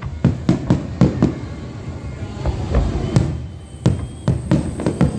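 Fireworks exploding: a rapid string of sharp bangs, each trailing a low rumbling echo, thinning out around the middle and then coming thick again toward the end.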